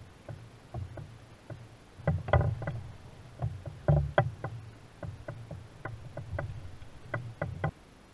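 Irregular knocks and clunks on a canoe hull as a paddler shifts and handles a fish in the boat, over a low rumble, with the loudest bumps about two and four seconds in; the sound stops abruptly near the end.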